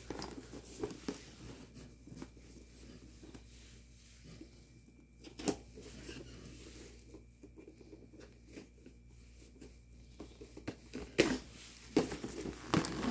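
Small scissors cutting tape on a cardboard toy box, with quiet scratching, rustling and taps from handling the box. A few louder cardboard knocks come near the end as the box is opened.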